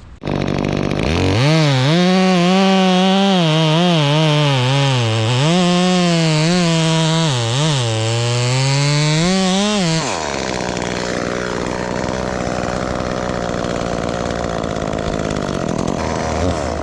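Chainsaw at high revs bucking wood into rounds, its pitch repeatedly dipping as the chain bites and rising as it frees, for about ten seconds. Then the note drops away to a steadier, lower engine drone.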